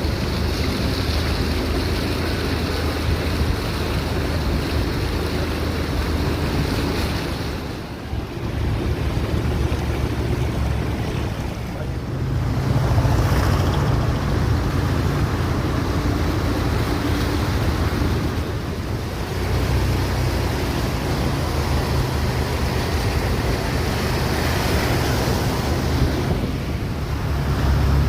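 Motor vehicles driving through a flooded road: engines running with a low hum that swells and fades as they pass, over steady sloshing and splashing of water, with wind buffeting the microphone.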